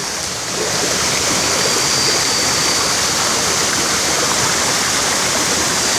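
Waterfall: water falling and rushing with a steady, even sound.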